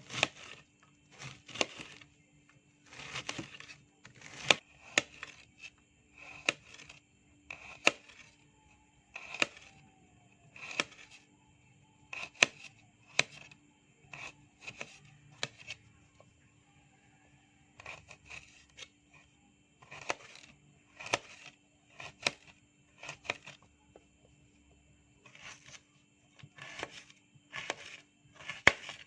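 Knife chopping on a cutting board: single sharp strokes, roughly one every second or so, with a few short pauses.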